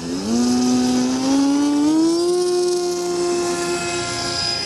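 Electric motor and propeller of an FPV Ranger RC plane throttling up for its takeoff run: a whine that rises in pitch for about two seconds, then holds steady.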